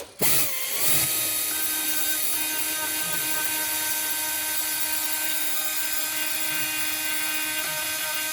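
A handheld power tool's motor running at a steady, high-pitched whine, starting abruptly just after the start.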